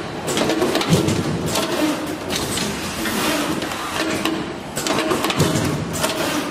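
Automatic double-loop wire punching and forming machine running, its conveyor feeding calendar sheets through with a busy clatter of irregular clicks and knocks over a steady mechanical drone.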